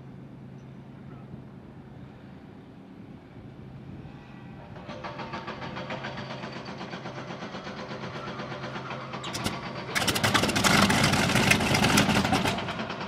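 Bf-109 E-3's Daimler-Benz DB 601 inverted V12 being started. It turns over rhythmically from about five seconds in, then fires and catches about ten seconds in, running loud and rough before easing slightly near the end.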